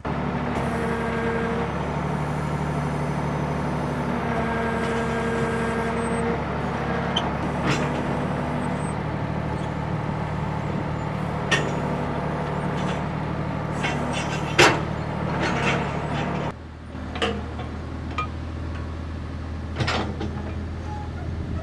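Ford 555 backhoe engine running steadily as the hydraulics work, with several sharp knocks and clanks as the bucket sets and taps stones into place. About 16 seconds in, the engine drops to a lower, quieter idle.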